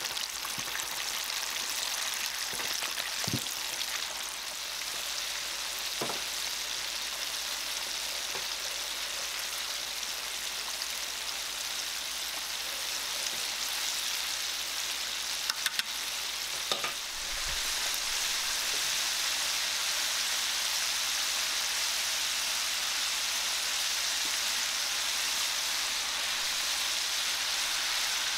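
Coated chicken pieces deep-frying in hot oil: a steady sizzle with a few light clicks in the first half. The sizzle grows louder a little over halfway through and stays there.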